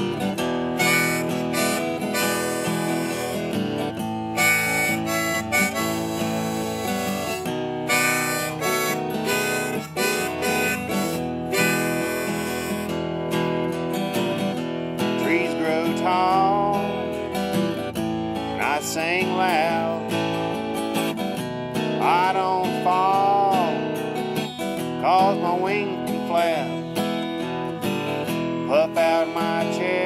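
Country blues played on a steel-string acoustic guitar, fingerpicked and strummed, with a Hohner Golden Melody harmonica in A played cross harp (second position) in the key of E over it.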